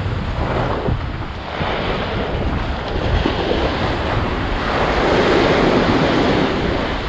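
Ocean surf breaking and washing up the beach, with wind buffeting the microphone. The wash swells louder twice, most strongly about two-thirds of the way through.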